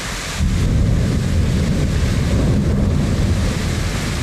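Thunder rumbling over steady heavy rain: a deep rumble sets in suddenly about half a second in and slowly fades over the next few seconds, with the hiss of rain throughout.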